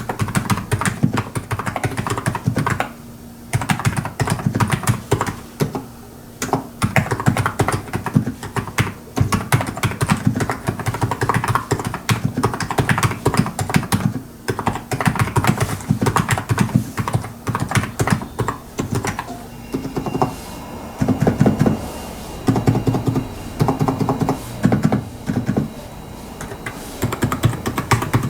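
Fast typing on a Hansung GK893B electrostatic capacitive keyboard with 35 g switches and PBT keycaps: dense, rapid keystrokes in runs, with brief pauses between them.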